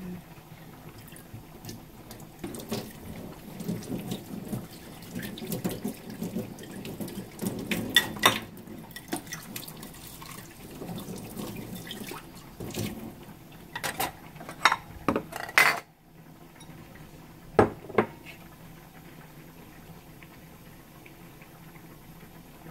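Tap water running and splashing in a kitchen sink, with dishes knocking together. The water stops about halfway through, a few sharp clinks follow, and after that only a faint steady hiss is left.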